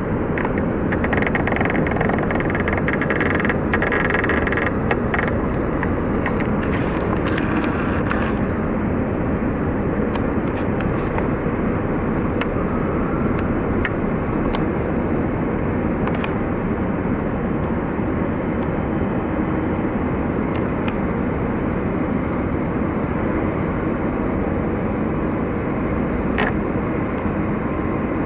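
Steady low rumble and noise of harbour ambience: a container ship and its tugs running their engines. A brighter hiss rides over it for the first several seconds.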